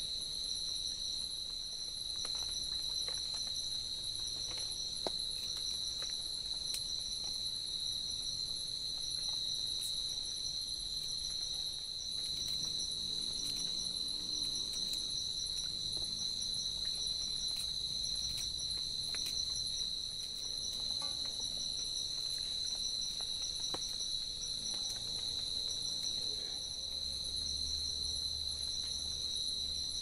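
Steady chorus of crickets and other insects chirping, several high-pitched trills layered together without a break.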